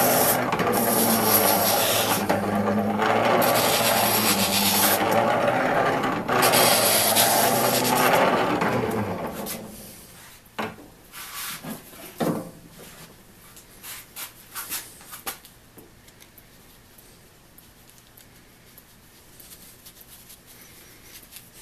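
Hand-cranked Keystone railroad tool grinder: the stone wheel turning under the crank with a rasping grind of a piece held against it and a whine that rises and falls with the cranking speed. The grinding winds down about nine seconds in, followed by a few light knocks and clicks.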